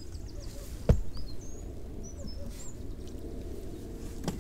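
A sharp knock about a second in and a softer one near the end, over a low steady rumble, with small birds giving short high chirps in the first half.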